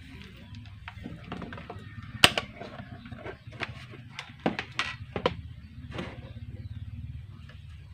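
Clicks and knocks of a handheld analog multimeter being handled and set down on a tabletop, the sharpest knock about two seconds in and a quick cluster a little past the middle, over a steady low hum.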